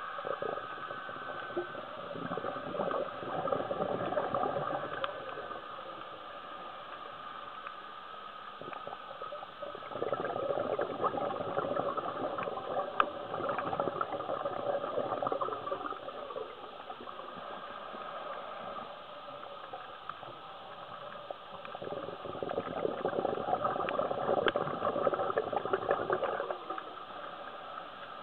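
A scuba diver's exhaled bubbles gurgling out of the regulator, three long bubbling exhalations about ten seconds apart, heard through the camera underwater. Between them the water carries a quieter steady hiss and crackle.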